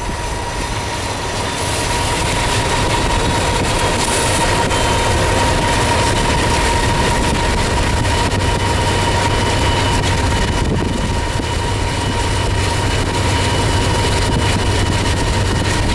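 Norfolk Southern diesel freight locomotives running alongside a moving vehicle that paces them: a steady low rumble and rushing noise, with a steady high tone running through it.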